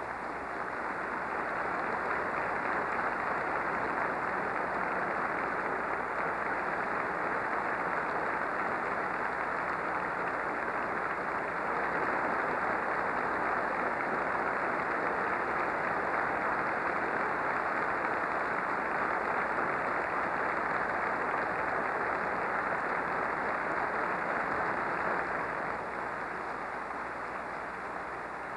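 Sustained applause from a large audience of delegates in a big assembly hall. It swells about a second in, holds steady and eases slightly near the end.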